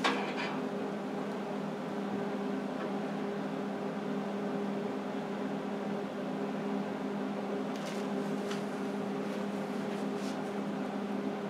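Steady electrical hum and fan noise of a MIG welder switched on and standing idle before the arc is struck, with a few faint light clicks near the end.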